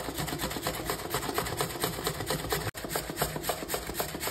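Carrots being grated by hand on a grater: quick, even rasping strokes, several a second, with a brief break a little past halfway.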